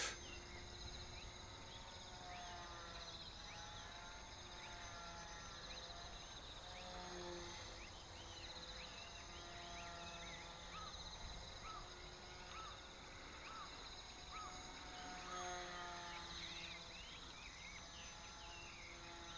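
Outdoor ambience of insects trilling steadily and birds chirping, with a series of short repeated calls about ten seconds in. A faint low hum swells and fades every few seconds.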